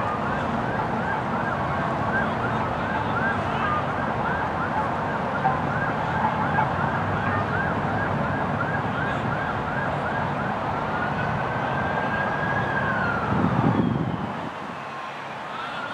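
Emergency vehicle siren going in a fast yelp, about two up-and-down cycles a second, switching about ten seconds in to a slow rising-and-falling wail, over a steady low traffic rumble. A brief low rumble near the end, after which the background gets quieter.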